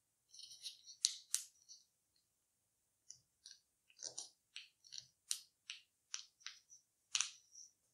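Origami paper crackling and rustling under fingers as a folded model is pushed open and creased flat: a string of short, faint crackles, with a brief lull about two seconds in.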